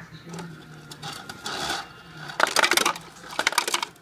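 Ice from a refrigerator door dispenser dropping and clattering into a plastic glass, in two bursts of rapid rattling in the second half.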